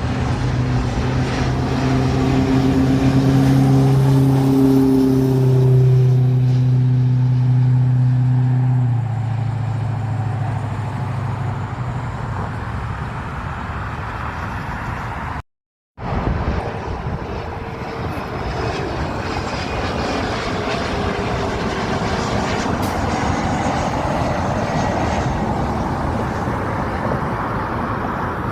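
Aircraft flying past: a steady low engine drone drops in pitch about nine seconds in as it goes by, then fades. After a brief cut to silence about halfway, a steady rushing noise follows.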